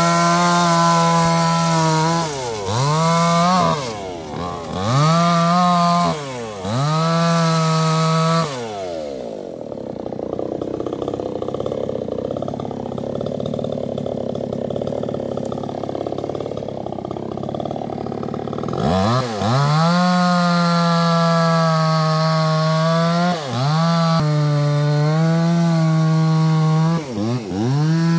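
Two-stroke chainsaw cutting into the trunk of a sonokeling (Indian rosewood) tree at high revs, the engine note dipping briefly between surges. About eight seconds in it drops to an idle for about ten seconds, then revs up high again, with short dips near the end.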